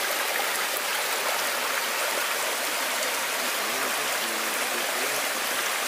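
Shallow mountain stream rushing steadily over rocks.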